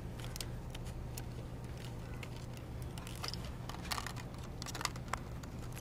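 Scattered light plastic clicks and crackles from a clear plastic clamshell bulb package being handled and opened, over a steady low hum.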